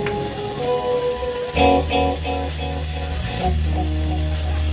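Live band music: guitar chords and held bass notes over light percussion, the bass coming in strongly about a second and a half in.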